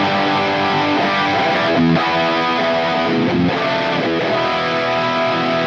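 Electric guitar played through a Line 6 Helix's high-gain Vitriol amp model into a 4x12 Mesa V30 cab miked with an SM57 and a 121. Sustained, ringing chords change every second or so, in a thick tone that is not too harsh and has plenty of bass.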